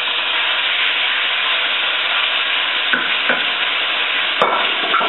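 Chicken pieces frying in smoking-hot olive oil in a stainless steel pot: a loud, steady sizzle, with a few light knocks about three and four and a half seconds in.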